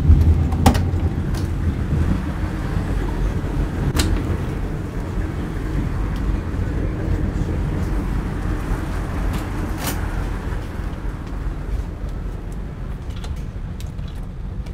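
Steady low rumble of a high-speed train running, heard from inside the carriage, with a few sharp knocks: one just after the start, one about four seconds in and one about ten seconds in.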